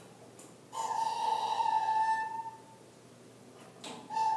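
A high whining squeal from the hydraulic loading rig of a concrete beam test, lasting about two seconds and slowly fading. A second squeal starts near the end.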